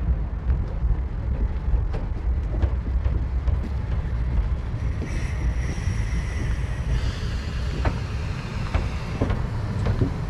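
Narrow-gauge steam train running: a steady low rumble with scattered clicks, and a high whining tone from about five seconds in that shifts pitch once and fades out about four seconds later.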